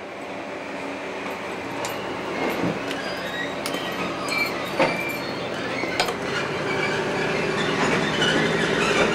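Blauer Blitz, a 1950s Austrian diesel railcar, pulling out of a station, its running noise building steadily as it gathers speed. Several sharp clicks and faint squeals from the wheels and track.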